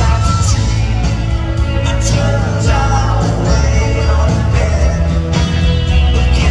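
A live band playing a country-rock song: a man singing while strumming an acoustic guitar over a full band with a heavy bass line.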